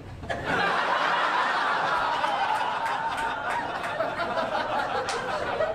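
Audience laughing at a stand-up punchline: a roomful of laughter that swells about half a second in and slowly dies down.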